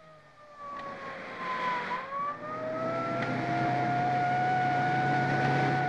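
Police vehicle siren wailing, its pitch sliding down for about two seconds and then rising back and holding, over the engines of approaching vehicles that grow steadily louder.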